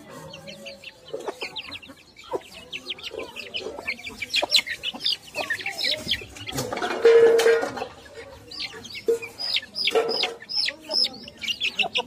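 Young Aseel chicks peeping, many short high cheeps that fall in pitch, coming thick and fast. A louder, lower squawk stands out about seven seconds in, and a shorter one comes near ten seconds.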